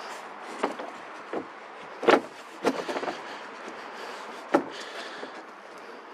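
Oversized square knocking and clacking against the timber frame as it is held and lined up on a corner: about five sharp knocks, the loudest about two seconds in and another at about four and a half seconds.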